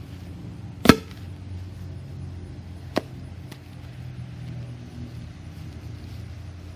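Stomp rocket launched by a foot hitting its air pedal, giving one sharp pop about a second in. A much fainter click follows about two seconds later.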